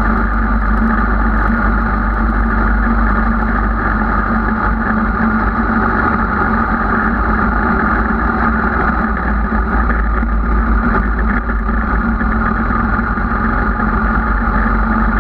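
Motorcycle engine running at a steady, low village speed, holding an even note, with wind rumble on the bike-mounted microphone.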